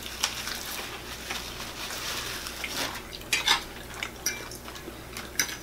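A fork clinking and scraping on a plate in short, scattered strokes, with paper rustling in between.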